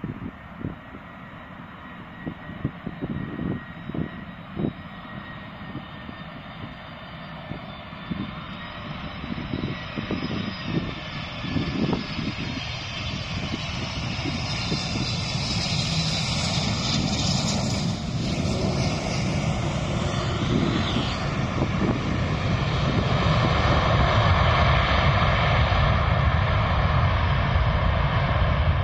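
Boeing 747 jet engines: a whine whose pitch slides down as the jumbo passes, then a roar that builds as it rolls out on the runway and is loudest near the end. Wind buffets the microphone in the first seconds.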